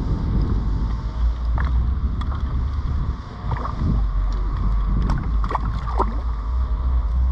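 A hooked peacock bass splashing at the surface beside a kayak, several short splashes, over a steady low rumble of wind on the microphone.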